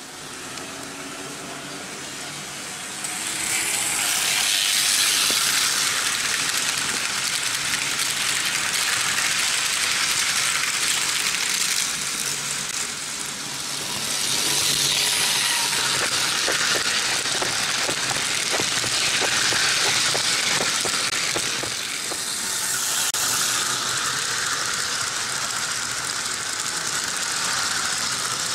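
Vintage Märklin H0 model trains running on tinplate M-track: a steady rattling rumble of wheels and motors that swells louder as the trains pass close. Midway there is a stretch of rapid clicking.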